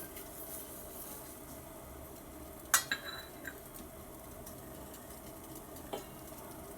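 A metal utensil clinks sharply against a pot about three seconds in, followed by a couple of lighter taps and one more tap near the end, as tea powder is spooned into the pot. A faint steady hiss runs underneath.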